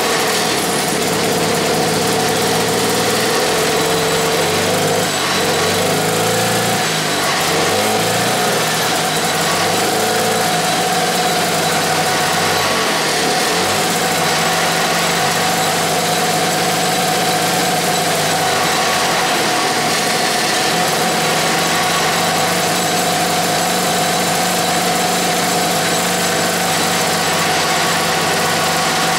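Antique two-stroke engine running on a substitute carburetor. Its speed rises and falls for about the first twenty seconds, then settles to a steady run.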